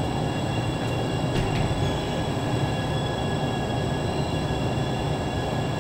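Steady low rumble with several faint high whining tones over it, even and unbroken throughout.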